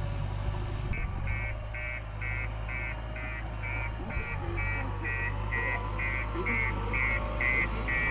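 JCB 3DX backhoe loader's reversing alarm beeping steadily, about two to three beeps a second, starting about a second in, over its diesel engine running at a steady low hum.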